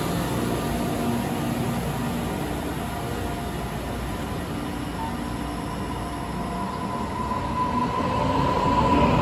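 Taiwan Railway EMU500 electric commuter train pulling out of the station, its carriages rolling past with steady running noise. A high whine comes in about halfway through and grows louder toward the end.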